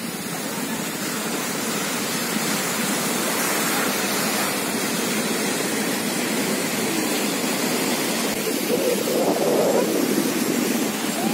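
Sea surf: waves breaking and washing up a sandy beach in a steady rush of water noise, swelling a little louder near the end.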